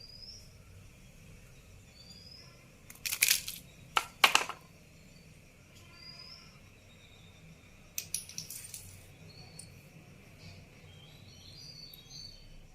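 Sharp clicks and snaps from hand work on a network cable and its RJ45 connector, in three short clusters, with faint, short rising chirps of birds or insects in the background.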